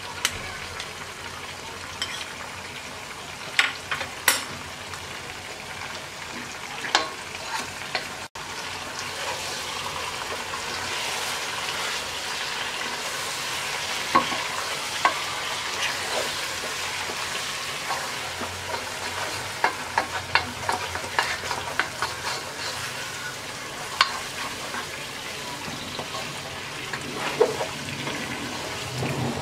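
Chicken and spices frying in oil in a cooking pot, sizzling steadily while a spoon stirs them, with scattered knocks of the spoon against the pot. The sizzle grows louder about nine seconds in.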